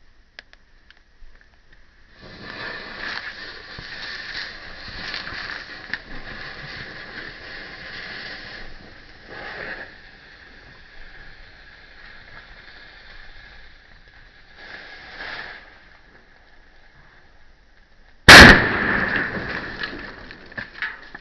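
A firecracker exploding in a paper boat: several seconds of hissing, then one sharp, very loud bang about eighteen seconds in that dies away over a couple of seconds. A faint steady high tone runs underneath throughout.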